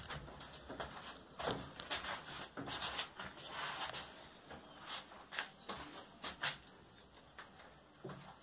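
Faint, irregular clicks and rustles with no motor running: the Suggar Turbilhão 33 tub washer fails to start when switched on at its timer, which points to a fault in the timer.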